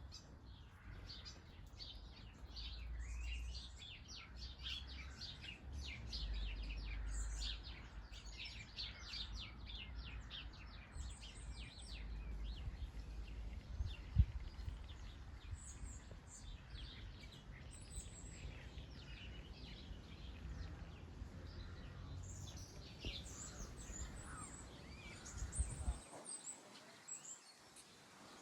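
Small garden birds chirping, many short, rapid calls overlapping, busiest in the first half and again near the end, over a low steady background rumble. A single sharp knock stands out about halfway through.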